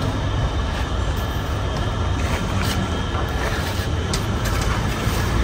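Steady road traffic noise: vehicle engines running and passing, with a low rumble throughout.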